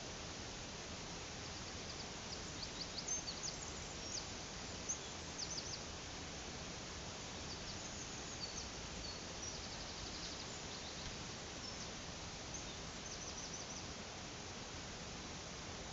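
Steady rush of a flowing brook and waterfall, with small birds chirping and trilling high above it, busiest in the first half and again near the middle.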